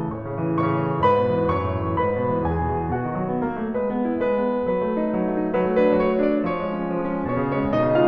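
Background piano music, a continuous flow of struck notes.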